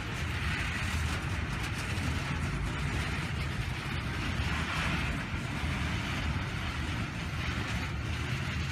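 Freight train's open-top hopper cars rolling past on the rails: a steady low rumble of wheels with a higher rushing wheel-on-rail noise over it.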